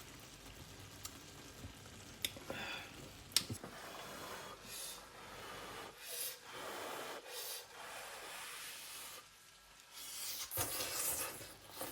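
A cooking utensil stirring and scraping in a pot of hotpot noodles: swells of rough scraping with a few light clicks.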